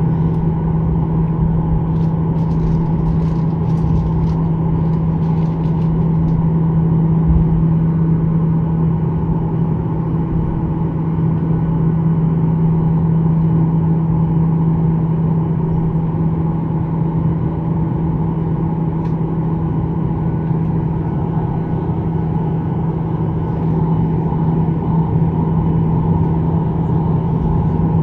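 Boeing 737-800's jet engines running at taxi power, heard from inside the cabin as a steady drone with a constant low hum.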